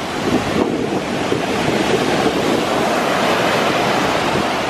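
Rough sea surf washing onto the shore in a steady rush, with wind buffeting the microphone.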